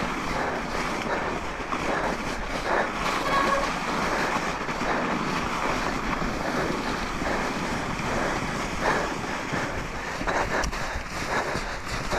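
Mountain bike tyres crunching and hissing through soft, rutted snow at speed, with wind buffeting the helmet-mounted camera's microphone.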